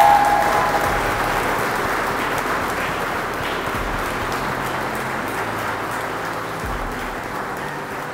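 Guests applauding, loudest at the start and slowly dying down over several seconds.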